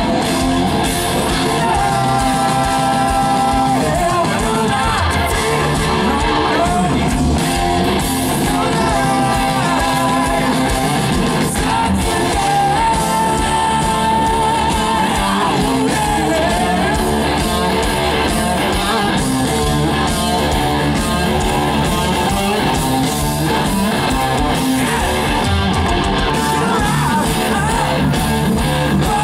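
Hard rock band playing live over a concert PA: electric guitars, bass, drums and keyboards, with a male vocalist singing.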